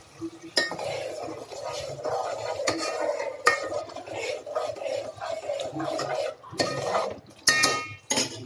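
A spoon stirring and scraping around the inside of a cooking vessel, with a handful of sharp knocks of the spoon against its side.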